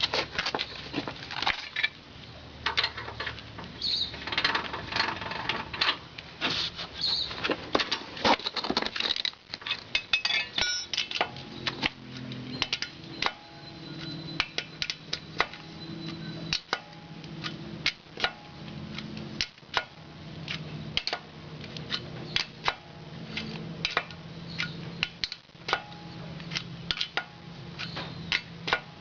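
Sharp metallic clicks and clinks of a car jack and tools being worked while the car is lowered onto its refitted wheel. A faint low hum comes in about halfway through.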